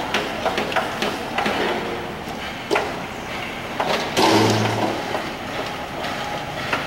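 Passenger train running, heard from inside the carriage: a steady rolling noise with irregular knocks from the wheels on the rails. A short, low pitched tone sounds a little after four seconds in.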